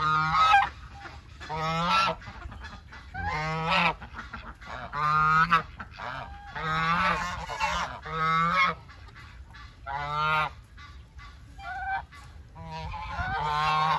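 Domestic geese honking repeatedly: loud calls of well under a second each, about eight of them, coming every one and a half to two seconds.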